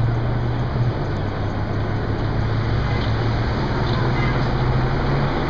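Busy city street traffic: vehicles passing, with a steady low engine hum underneath.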